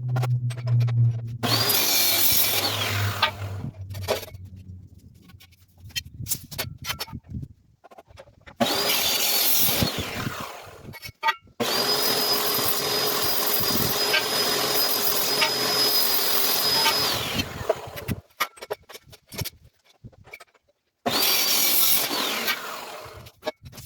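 Electric power tool cutting material for a firewood rack, run in four separate bursts with a high steady whine, the longest about five seconds in the middle; between the runs there are knocks and handling sounds.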